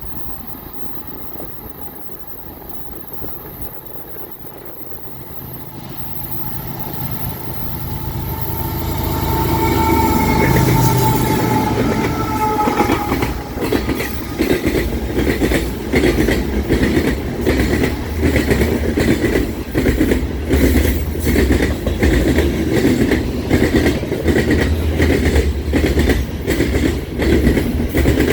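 Sand train approaching: a low rumble grows louder for about ten seconds, and the lead diesel locomotive sounds its multi-note horn, whose pitch drops slightly as it passes. Then the loaded cars roll by with a heavy rumble and a steady clickety-clack of wheels over rail joints.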